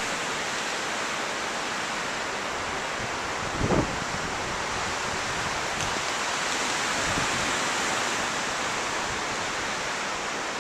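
Steady rushing of wind through conifer trees. About three and a half seconds in, a short low gust buffets the microphone.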